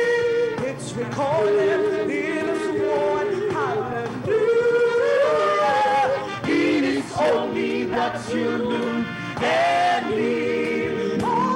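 Women's choir singing a gospel worship chorus in harmony, holding notes of a second or two between short breaks.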